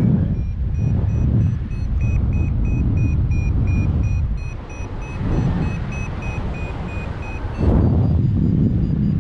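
Paragliding variometer beeping, a few short beeps a second at a slowly rising pitch: the instrument's signal that the glider is climbing in lift. Heavy wind rumble on the microphone runs underneath and is the loudest sound.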